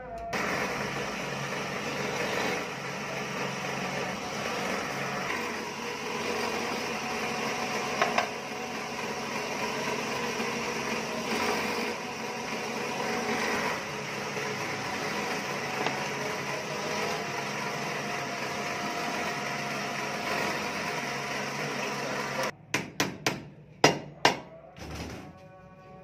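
Bench drill press running and cutting through a tractor brake shoe as it drills the shoe. About three seconds before the end it stops, and about six sharp, hammer-like knocks follow in quick succession.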